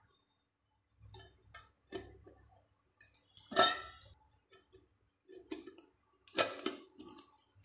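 Stainless steel tiffin box lid being fitted and pressed shut on the container: light metal clinks, with two sharp clanks about three and a half and six and a half seconds in.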